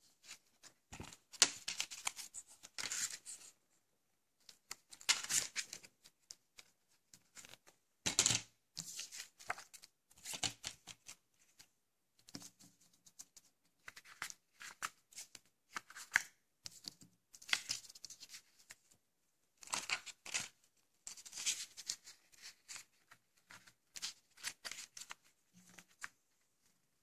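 Hands handling paper leaflets and a plastic DVD case: irregular bursts of rustling and sliding, with short pauses between.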